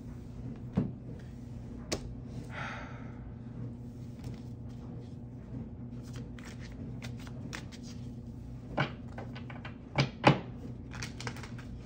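Tarot cards being handled on a table: scattered light clicks and taps, a short brushing rustle about two and a half seconds in, and a few louder knocks near the end, over a steady low hum.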